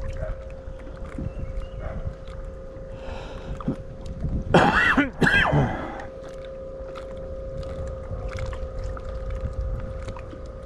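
Bow-mounted electric trolling motor running with a steady whine, over low wind and water noise against the boat. About halfway through there is a brief, louder sound with a pitch that bends up and down.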